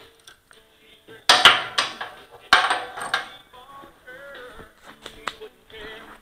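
Metal clanking and clattering in two loud bursts about a second apart, from steel parts or tools being handled at a wood chipper.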